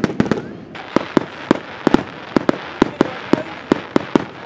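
Fireworks display going off: a rapid, uneven run of sharp bangs, two or three a second, over a steady crackling hiss.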